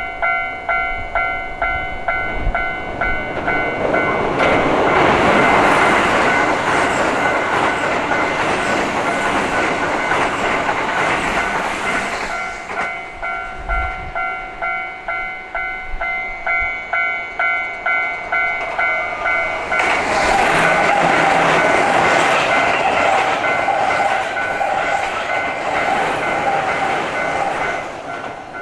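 Japanese railroad crossing bell ringing about twice a second while two Keihan Main Line trains pass, one after the other: the first rushes past from about four seconds in, the second from about twenty seconds in, each a long stretch of wheel and running noise over the bell.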